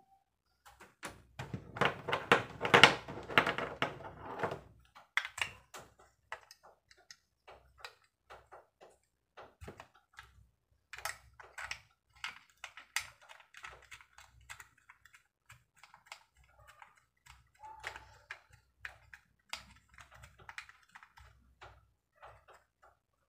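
Sharp plastic clicks and taps from an action camera in its clear waterproof housing being handled and worked with the fingers. A denser, louder stretch of clattering handling runs from about one second in to about four and a half seconds, followed by scattered single clicks.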